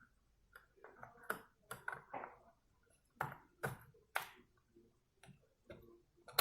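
Faint clicks and taps of a laptop RAM module being handled and pressed into its slot on the motherboard, with a much louder click at the very end.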